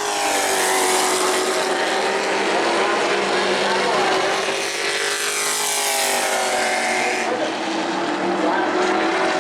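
Pro Truck race trucks' engines running at racing speed around the oval, the pitch sweeping up and down as the pack passes by, once near the start and again around five to seven seconds in.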